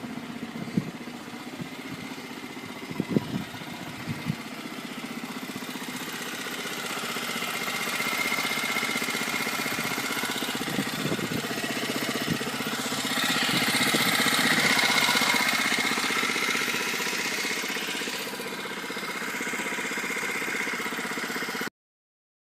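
Small vehicle engine running steadily, growing louder twice as it comes close, with a few sharp knocks in the first seconds. The sound stops abruptly near the end.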